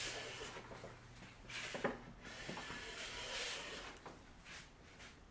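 Block plane shaving a wooden board: a few strokes, each a brief scraping swish, with light knocks of the plane on the wood between strokes.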